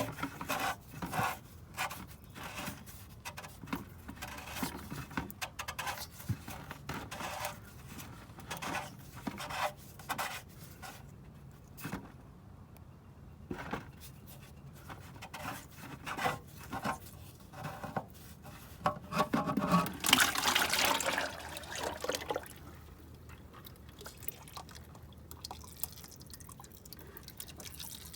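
Short metal clicks and knocks of work at the oil drain plug of a Ford Jubilee tractor engine. About twenty seconds in, old engine oil starts to pour out in a loud rush, then settles into a steadier running stream. The owner suspects the oil is contaminated with antifreeze.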